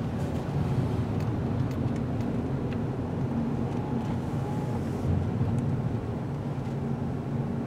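Steady road noise heard inside a moving car: engine and tyres on a rain-soaked road, with a few faint ticks.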